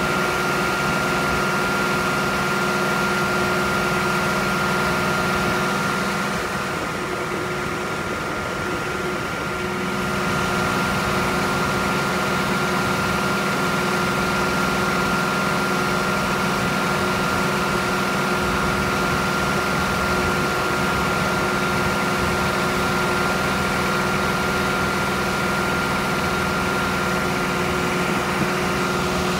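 FMC LMD2000 deicer truck's engine and hydraulic system running steadily, with a thin steady whine over the engine drone while the boom is raised. The sound drops slightly about six seconds in and comes back up a few seconds later.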